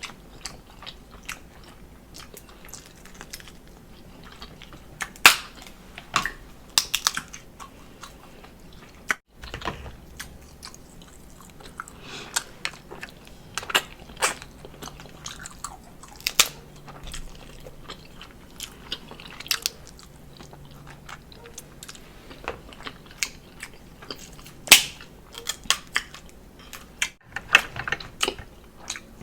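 Close-miked eating of seafood: wet chewing and mouth sounds with irregular sharp clicks scattered throughout, two of them louder, about five seconds in and near the end.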